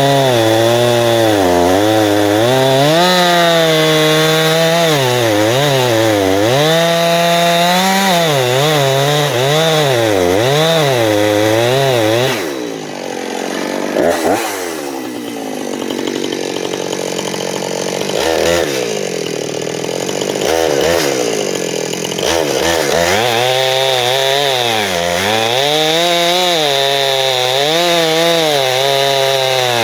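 Two-stroke chainsaw cutting dead ash wood at full throttle, its pitch dipping and recovering as the chain loads up in the cut. About twelve seconds in it falls off to a lower, quieter speed, then revs back up and cuts again from about 23 seconds on.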